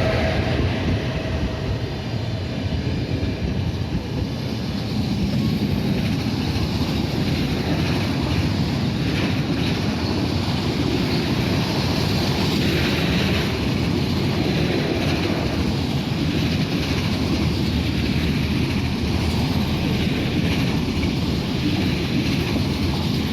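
Freight train rolling through the station: a loud, steady rumble of wheels and wagons on the rails.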